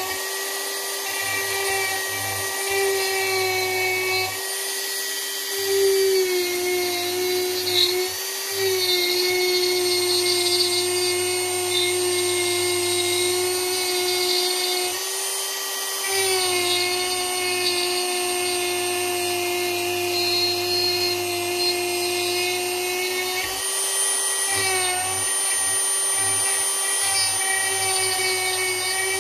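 Dremel rotary tool running at high speed as its bit carves wood: a steady high whine that dips briefly in pitch a few times as the bit bites in.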